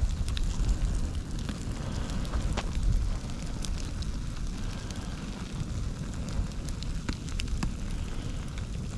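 Fire crackling as the wreckage of a crashed RC airplane burns: irregular sharp pops scattered over a steady low rumble.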